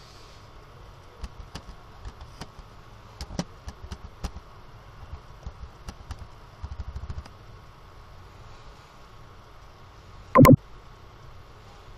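Computer keyboard typing: irregular key clicks over a steady background hum, with a quick run of repeated keystrokes a little past the middle. Near the end, one loud short knock.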